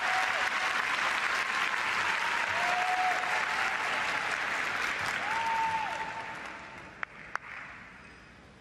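Arena audience applauding a figure skater as he takes the ice. The clapping dies away about six seconds in, and two sharp clicks follow near the end.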